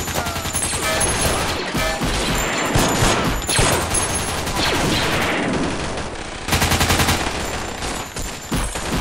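Dense battle sound effects of continuous gunfire and blaster shots, with a louder burst of rapid machine-gun-style fire about six and a half seconds in.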